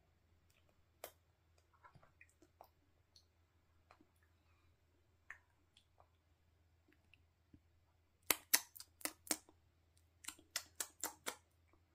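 Two quick runs of sharp clicks, about five and then about seven a second later, with faint scattered clicks before them.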